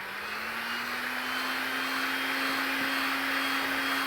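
Electric heat gun running, its fan motor whine rising in pitch as it spins up during the first second and then holding steady over a rushing air hiss.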